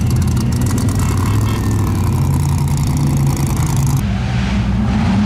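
Off-road vehicle engine running at a fairly steady speed, with a fast rattle over it; about four seconds in the rattle drops away abruptly and a steady engine note carries on.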